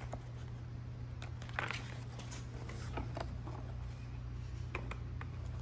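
Paper workbook pages being flipped and the book set on a wooden book stand: soft rustles and a few light taps over a steady low hum.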